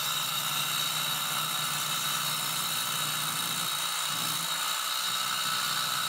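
SkilSaw Medusaw 7-inch worm drive concrete saw running steadily as its diamond blade cuts along a line in a concrete slab: a steady high whine over a rough hiss.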